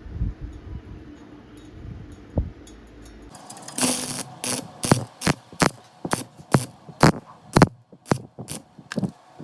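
A low rumble with a few knocks, then from about three and a half seconds in a run of sharp clicks or taps, roughly two a second.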